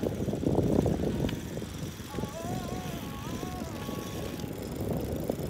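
Wind buffeting the microphone, with the rolling noise of a moving recumbent trike on pavement. Faint wavering tones come and go in the middle.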